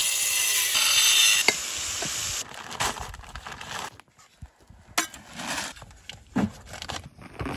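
A paper sack of grey cement handled over a flexible plastic builder's tub: a dense rushing hiss for about the first two and a half seconds, then scattered light knocks and rustles.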